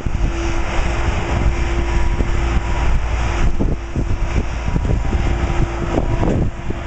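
Shipyard dry-dock noise: a steady low machinery rumble with a constant hum and scattered knocks. The hum fades out near the end.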